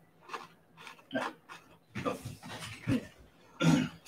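Close-up crunching and chewing of a crunchy biscuit right at the microphone, in irregular crackly bites, with one louder burst near the end.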